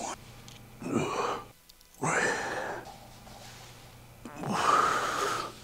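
A man breathing hard, with three or four short, noisy exhales separated by pauses; one is voiced like a short grunt.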